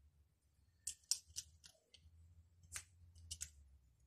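Cutting a slit through cosplay foam by hand: a faint scatter of short, sharp cutting clicks, a few around the first second and a cluster near the end.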